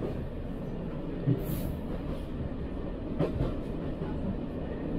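Passenger train running along the track, heard from inside the carriage: a steady rumble with a couple of sharp wheel knocks, about a second and three seconds in.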